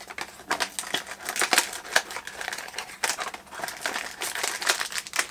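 Blind-box packaging crinkling and rustling in the hands: a rapid, irregular run of crackles.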